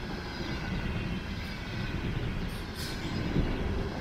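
Container freight train rolling past, a steady low rumble of wagon wheels on the rails, with a brief hiss about three quarters of the way through.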